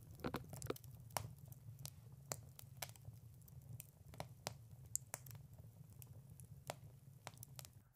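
Fire burning in a steel-mesh fire pit, crackling with irregular sharp pops, a couple a second, over a low steady rumble of the flames.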